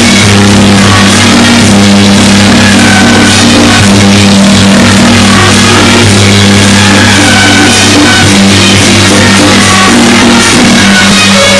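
Loud music with drums and a melody over a steady low hum, going on without a break.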